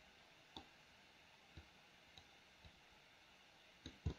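Faint computer-mouse button clicks: about six short, scattered clicks over near silence, the loudest near the end.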